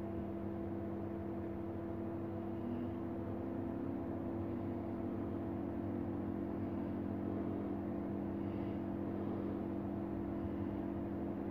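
Steady hum of a running electrical appliance, with a couple of constant low tones and no change in pitch or level.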